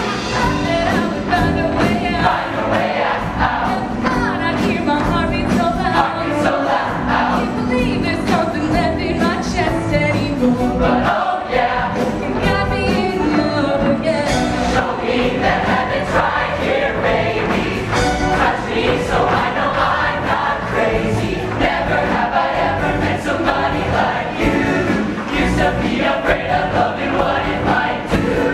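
Show choir singing with instrumental accompaniment.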